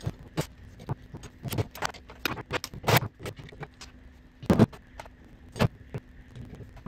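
Irregular metallic clinks and knocks of hand tools, sockets and brake servos being picked up, handled and set down on a metal bench, with a few sharper knocks about three, four and a half and five and a half seconds in.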